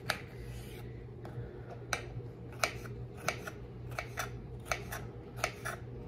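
Kitchen knife finely dicing a jalapeño pepper, the blade knocking on the hard countertop in sharp, uneven taps. The taps come more often in the second half.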